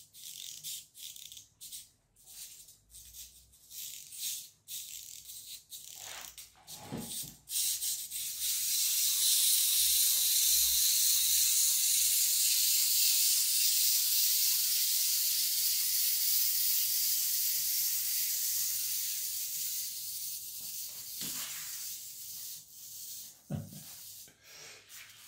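Plastic clockwork toy elephant running on a table after being wound. First comes a run of quick clicks and clatters, then from about eight seconds in a steady high whir of the wind-up motor, which fades over several seconds. A couple of knocks come near the end.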